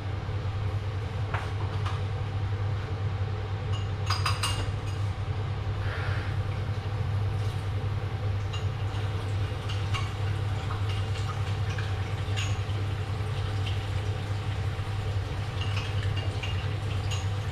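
A steady low hum, with scattered clinks and knocks of dishes and utensils being handled at a kitchen counter; the sharpest cluster of clinks comes about four seconds in.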